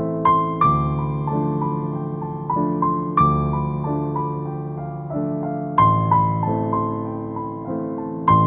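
Background music: a gentle piano or electric-piano melody over sustained chords, with a new chord struck about every two and a half seconds.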